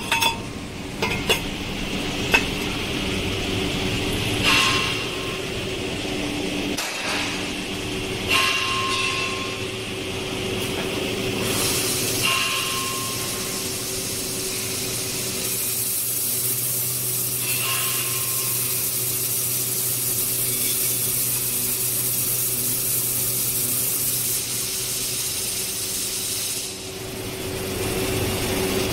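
Automated laser tube-cutting and polishing machine running: a steady mechanical hum with a few sharp clicks at first, then short hissing squeals about every four seconds, and a continuous high hiss lasting about nine seconds in the middle.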